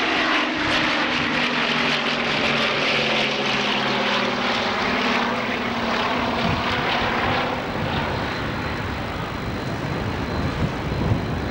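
Bristol Blenheim's twin Bristol Mercury radial piston engines droning in flight, the engine note sloping gently down over the first half. It then gives way to a rougher, noisier rumble.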